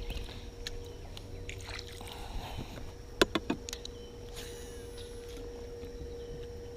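Quiet sounds aboard a small fishing boat: a faint steady hum, with a quick cluster of about four sharp knocks a little past three seconds in.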